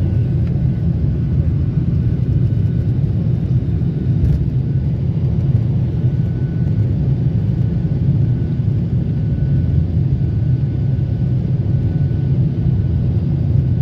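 Steady low cabin noise of a jet airliner in flight: engine and airflow rumble heard from a window seat over the wing.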